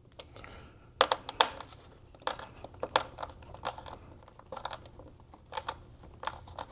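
Irregular sharp clicks and taps with light rustling, as small parts and tools are handled. The loudest cluster of clicks comes about a second in.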